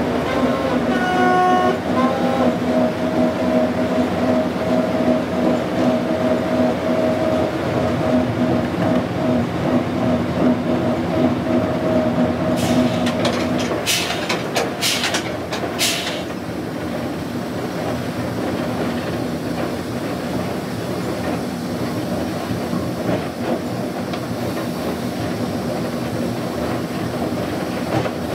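Class 05 diesel shunter's Gardner engine running steadily during a cab ride, with a short horn blast about a second in. There are a few sharp knocks about halfway through, after which the strong steady running tone gives way to a quieter, rougher running sound.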